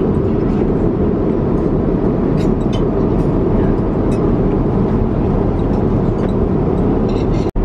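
Steady low rumbling airliner cabin noise in flight, the jet engines and airflow heard from inside the cabin, with a few faint light clicks. It drops out for an instant near the end.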